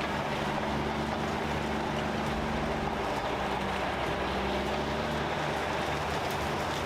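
Heavy earthmoving machine's diesel engine running steadily, with a slight change in engine pitch two to three seconds in.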